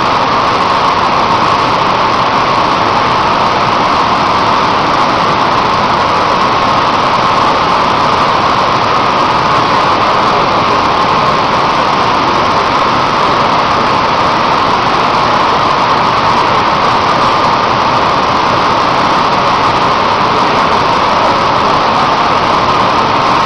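Steady, loud rushing noise of steelmaking plant around an oxygen-blown LD converter, even and unbroken, with no knocks or bangs standing out.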